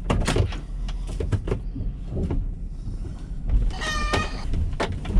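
Low road and engine rumble heard inside a moving GMC Yukon, with a few knocks. About four seconds in comes a short, high squawk from a chicken being run over.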